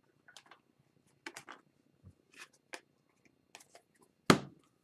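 2021-22 Upper Deck Series 2 hockey cards being handled and shuffled in the hands: scattered soft clicks and light rustles, with one louder, sharper click near the end.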